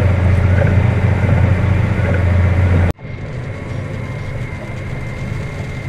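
Claas Axion tractor's diesel engine running steadily under field work with a disc harrow, a loud low drone. About three seconds in the sound breaks off abruptly and carries on noticeably quieter, with a faint steady whine over the engine.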